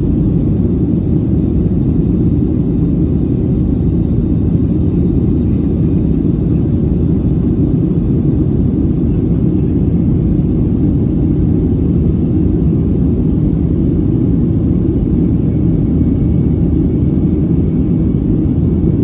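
Deep, steady roar inside the cabin of a Boeing 737-800 climbing after takeoff: its CFM56-7B jet engines and the airflow over the fuselage, heard through the cabin walls.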